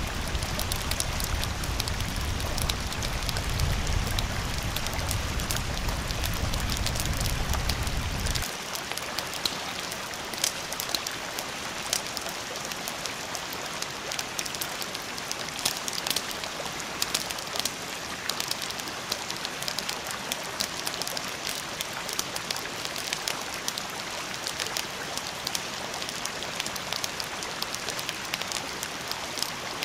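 Rain ambience: a steady patter of dense crackling drops, with a low rumble underneath that stops suddenly about eight seconds in.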